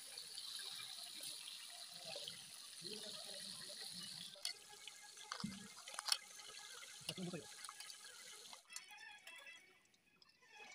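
Fish steaks frying in hot oil in a steel kadai: a steady sizzle with a few sharp clinks of a metal spoon against the pan. The sizzle cuts off suddenly near the end.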